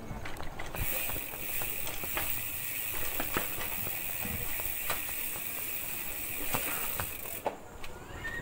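A mountain bike's rear freehub buzzing steadily as the bike coasts. The buzz starts about a second in and cuts off suddenly near the end. Scattered small knocks and rattles come from the bike going over bumps.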